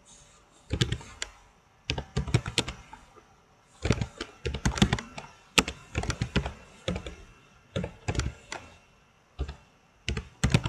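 Typing on a computer keyboard: irregular keystrokes in short runs, with brief pauses between them.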